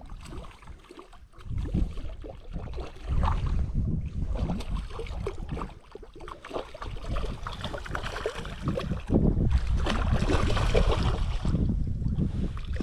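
Strong gusty wind buffeting the microphone, coming and going in surges, with a longer, louder rushing gust near the end.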